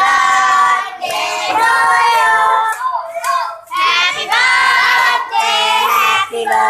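A group of teenage girls singing a birthday song together and clapping their hands along with it.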